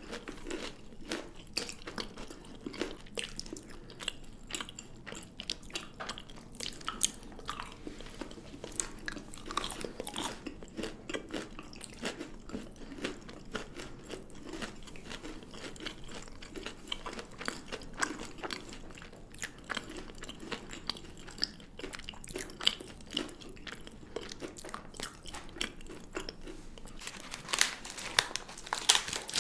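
Close-miked chewing and crunching of chocolate: a steady run of small crunches and mouth clicks, growing louder and crackling more near the end.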